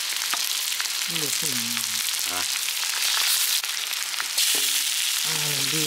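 Chicken curry sizzling in a hot pan: a steady frying hiss that grows louder about halfway through, with a few faint ticks.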